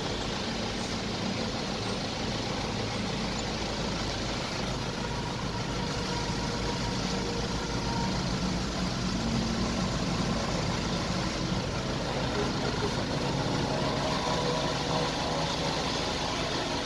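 Mahindra Thar's engine idling steadily.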